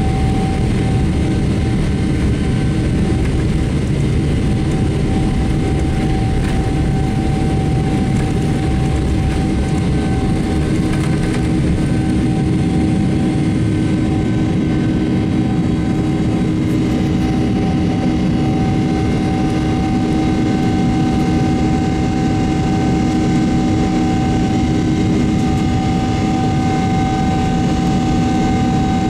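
Inside the cabin of a Boeing 777-300ER on takeoff: its GE90-115B turbofan engines running at takeoff thrust, a loud steady noise with a steady whine over the rumble of the wheels on the runway. The rumble gives way partway through as the aircraft lifts off and climbs.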